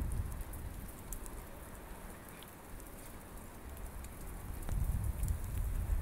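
Wind rumbling on the microphone outdoors in a snowstorm, easing off in the middle and picking up again near the end, with faint scattered ticks above it.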